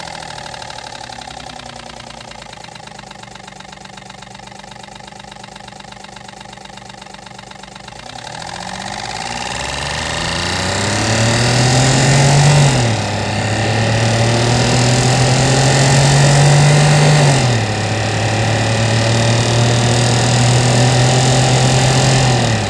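Homemade cardboard three-blade fan spinning with a strip of paper flapping against its blades, making a buzz that sounds like a three-cylinder kei car engine. It runs low and steady at first, then rises in pitch and loudness from about eight seconds in, drops suddenly twice like an automatic gearbox shifting up, and settles into a steadier run near the end.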